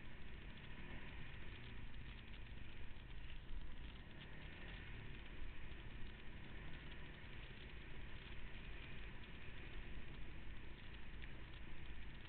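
Off-road vehicle engine running steadily on a trail ride, a continuous low rumble without sharp revs or impacts.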